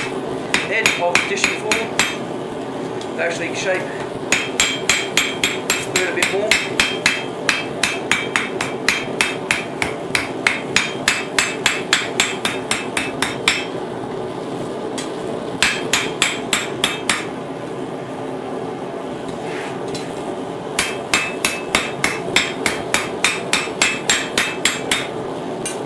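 Hand hammer striking a red-hot steel spoon blank on an anvil, forging the spoon. The blows come in runs of quick ringing strikes, about three a second, with short pauses between runs, over a steady hum.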